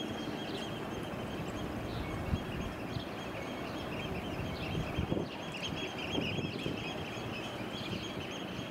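Gulls calling over and over, many short high cries, over a steady low rumble of harbour background.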